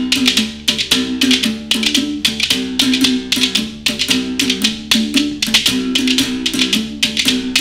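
Uhadi musical bow, its wire string struck with a thin stick in a quick, steady rhythm, its calabash resonator bringing out low tones that step back and forth between two notes. A beaded calabash shaker rattles along with the strokes.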